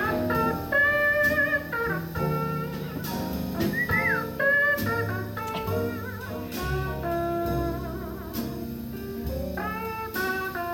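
Small jazz combo of piano, upright bass and drum kit playing an instrumental passage of a ballad: a walking bass line under held melody notes, one of which bends up and back down about four seconds in.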